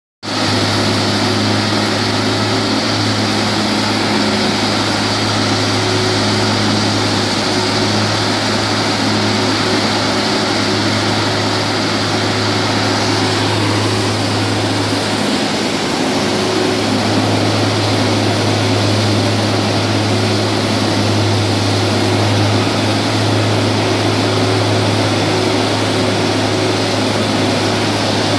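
A machine running steadily at constant speed, with a strong, even hum under a broad whirring noise that does not change.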